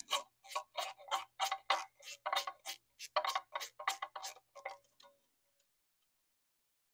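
Socket ratchet clicking about three times a second as it backs out the pinch bolt on a pit bike's gear shift lever, then stopping about five seconds in.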